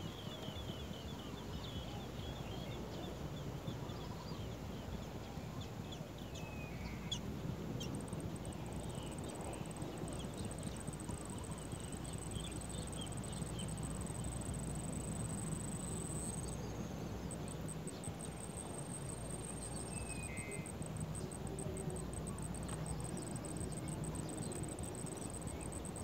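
High-pitched insect trill, steady at times and pulsing at others, over a low background rumble, with a few faint chirps.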